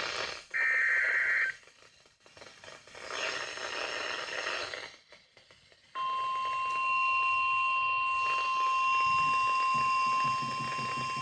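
NOAA Weather Radio emergency alert: a burst of warbling SAME header data ends about a second and a half in, followed by a few seconds of radio hiss. Then the steady 1050 Hz weather-radio warning alarm tone starts about six seconds in and holds.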